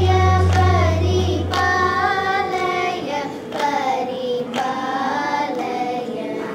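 Children singing a Carnatic song together over a steady shruti drone. Hand slaps keep the tala about once a second.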